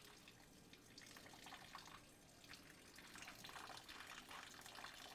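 Near silence with faint water sounds: light drips and small splashes of water.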